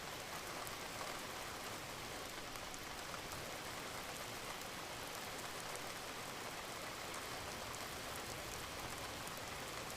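Steady rain falling, a dense patter of many individual drops.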